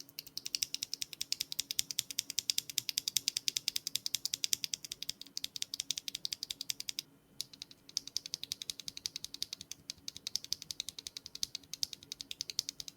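Hand-lubed KTT linear mechanical keyboard switch being worked rapidly by hand: a fast, even run of light plastic clacks, about a dozen a second, with a brief pause about seven seconds in.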